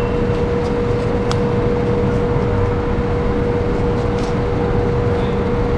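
Steady mechanical hum and low rumble with one constant mid-pitched tone, and a light click about a second in and another near four seconds in.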